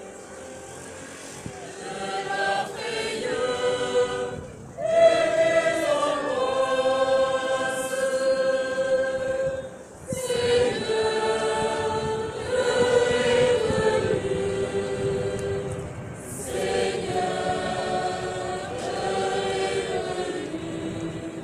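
A large crowd singing a hymn together in long held phrases, with short pauses about every five to six seconds.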